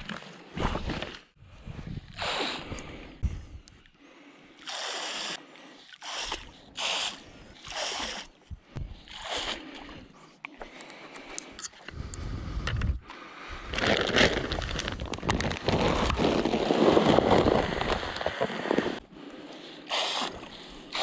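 Clumps of bait thrown by hand into shallow dam water, splashing several times, with a last splash near the end. A longer stretch of scraping and rustling comes in between.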